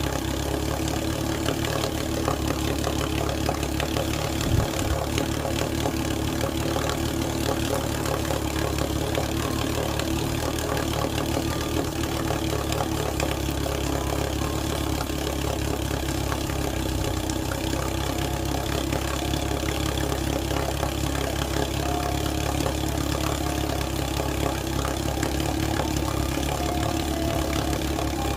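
1948 Sea King 5 HP two-stroke outboard motor running steadily in a test barrel of water on its break-in run after a rebuild. A single sharp knock comes about four and a half seconds in.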